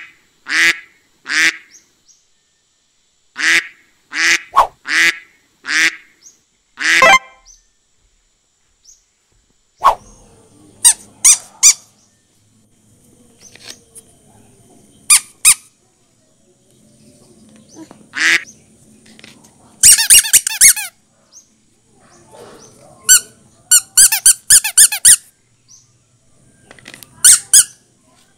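Yellow rubber squeaky duck toys squeezed by hand, each squeeze giving a short squeak. The squeaks come in irregular clusters, several in quick succession, with pauses between.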